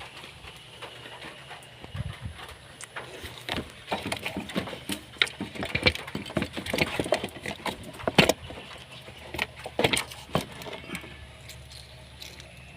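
Irregular clicks, knocks and clatter of hands working on car parts and tools, busiest in the middle and thinning out near the end.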